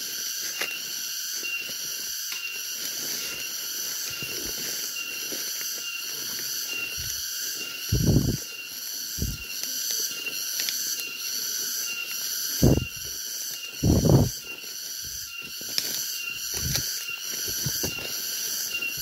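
A steady, evenly pulsing high-pitched chorus of forest insects, with footsteps and brushing through undergrowth below it and three louder low thumps about 8, 13 and 14 seconds in.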